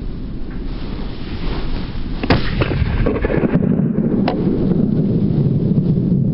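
Two sharp shotgun reports about two seconds apart over a steady low rumble, which swells louder about halfway through.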